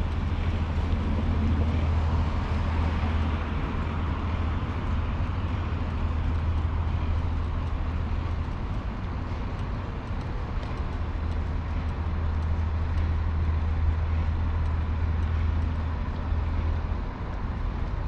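Steady low outdoor rumble over a soft background hiss, with no distinct events.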